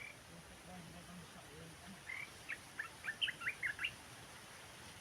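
A bird giving a quick run of about eight short, sharp chirps, starting about two seconds in, over faint outdoor background.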